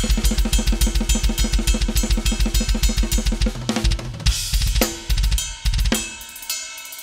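Drum kit played hard: rapid bass drum strokes and snare under a steady wash of cymbals, breaking into a sparser passage of separate heavy hits about four seconds in.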